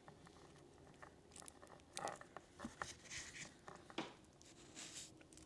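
Faint scattered clicks, taps and rustles of a pearl necklace and small jewelry tools being handled as a strand is reattached to its hook; the sharpest clicks come about two and four seconds in.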